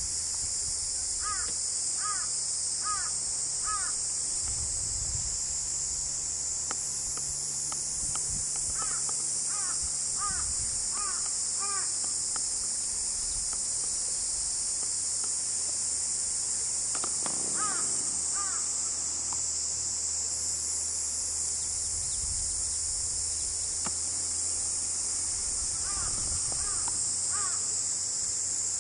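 A steady, high-pitched drone of insects, with a crow cawing in four short runs of three to five caws each.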